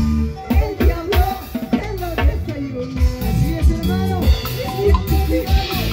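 Live band playing an instrumental passage: drum kit keeping a steady beat at about two hits a second, with electric bass and harp notes moving underneath.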